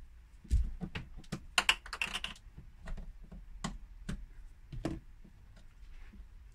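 Plastic trim tool prising plastic screw-cover bungs out of a fridge's plastic inner wall: an irregular run of small plastic clicks and taps, stopping about five seconds in.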